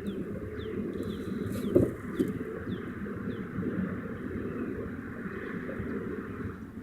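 A bird giving a quick series of short, falling chirps over steady outdoor background noise, with a sharp knock a little under two seconds in.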